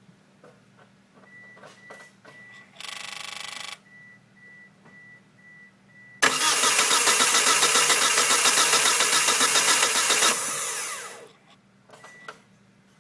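A DSM car's starter cranking the engine for about four seconds without it catching, then winding down: a no-start. Before the cranking there is a repeating high warning chime and a short buzz.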